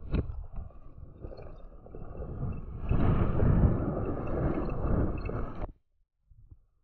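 Rumble and wind noise of a mountain bike ride over grass, picked up by the rider's camera microphone, growing louder about halfway through and cutting out briefly near the end.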